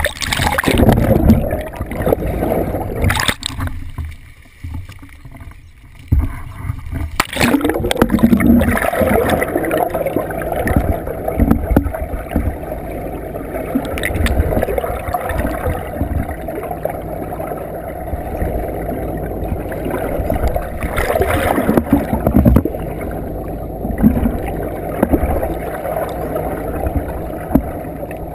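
Rushing, gurgling water heard through a camera held underwater in a boat's bow wave, the sound muffled and heavy in the low end. A few loud splashes come in the first several seconds as the camera breaks and re-enters the surface, then the water rush runs on steadily.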